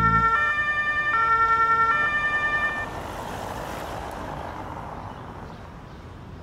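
German police car's two-tone siren, alternating between a high and a low pitch about every 0.8 s, then cutting off about three seconds in. A fading rush of noise follows.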